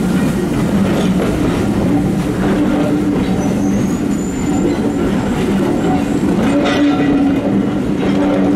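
Passenger carriages rolling slowly past a platform, their wheels clicking over rail joints under a steady low rumble, with a brief high wheel squeal about halfway through.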